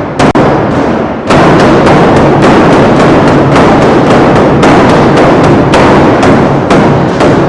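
Large Chinese barrel drums being beaten hard and fast in a dense roll, with single heavy strikes standing out among the rolling. The drumming is very loud and starts abruptly.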